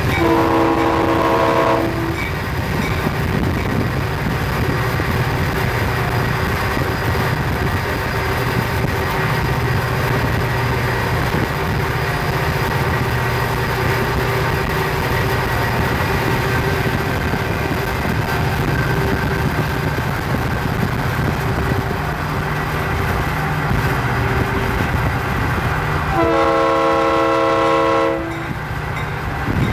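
Florida East Coast diesel freight locomotives running at speed with a steady low rumble, heard from a car pacing alongside. The lead locomotive's air horn sounds two blasts of about two seconds each, several notes together, one at the start and one near the end.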